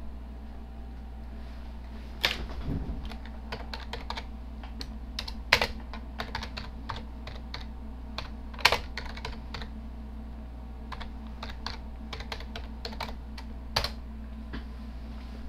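Typing on a computer keyboard: an irregular run of keystrokes as a terminal command is entered, with a few keys struck harder than the rest, over a steady low hum.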